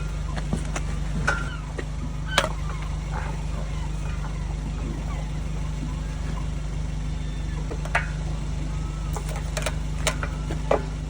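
A few sharp metallic clinks and knocks of hand tools on the outboard's parts, over a steady low machine hum.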